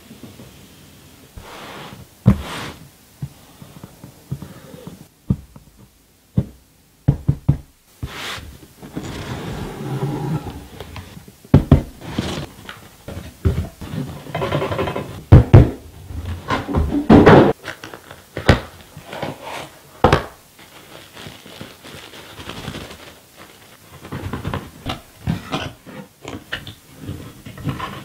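Cardboard packaging handled and opened by gloved hands: irregular thunks and knocks as boxes are set down and moved, between stretches of cardboard scraping and rustling as flaps are opened and inner boxes slid out.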